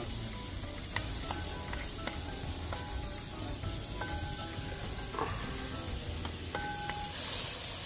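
Sliced onions sizzling in hot coconut oil in an aluminium pan, stirred with a wooden spatula that scrapes and now and then taps the pan.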